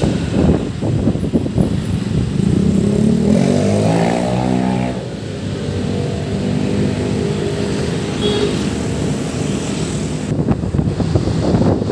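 Motorcycle engine pulling away, its pitch rising for a couple of seconds about three seconds in, then running steadily. Wind buffets the microphone at the start and again near the end.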